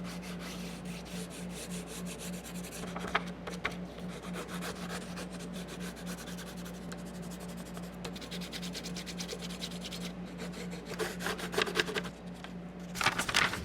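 Hand rubbing and scratching strokes while a template is taken off the saw's support wing, growing louder in a few quick clusters near the end, over a steady low hum.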